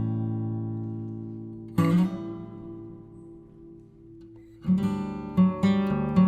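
Background music on acoustic guitar: strummed chords ring out and fade, a fresh chord comes about two seconds in, and a steady strumming rhythm starts after a brief lull near the end.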